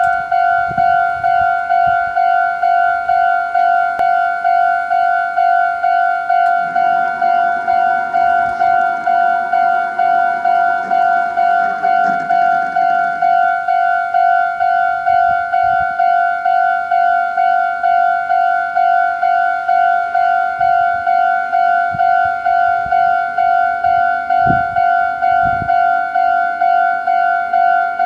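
Japanese railway level-crossing alarm ringing: an electronic bell striking one steady pitch evenly, about twice a second, warning that a train is approaching.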